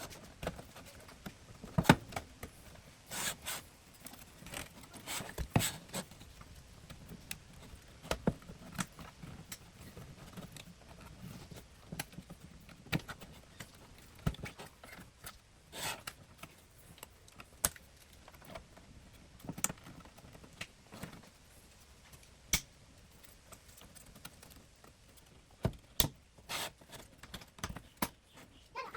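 Scattered clicks, taps and light scrapes of hands and tools working on a car radio head unit, prying at its plastic front panel and screws, with a few sharper knocks.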